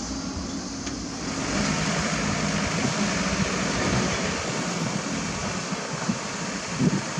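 Diesel engines of small tipper dump trucks running steadily, getting louder and hissier about a second in, with a few low knocks near the end.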